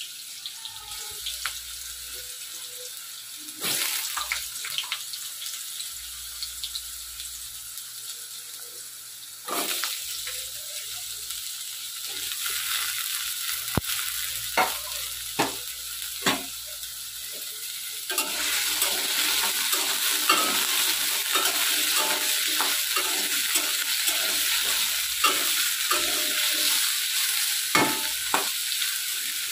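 Cubed potatoes sizzling in hot oil in an aluminium kadai, frying until lightly browned. The sizzle grows louder about a third of the way in and again past the middle. A metal spatula stirs them, giving scrapes and knocks on the pan that come often in the second half.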